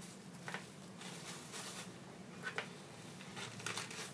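Soft rustling and handling of small gear items being taken out of a backpack pocket, with a few brief scuffs and clicks over a faint steady hum.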